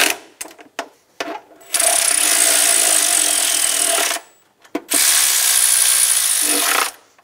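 Cordless electric ratchet running in two bursts of about two seconds each, with a steady motor whine, snugging down the timing cover bolts. A few light clicks come before it as the socket goes onto a bolt.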